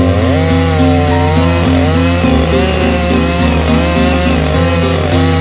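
Stihl MS881 two-stroke chainsaw running under load on a chainsaw mill, its ripping chain cutting a slab lengthwise through an ash log, the engine pitch dipping and recovering as the cut goes on. Background music plays along with it.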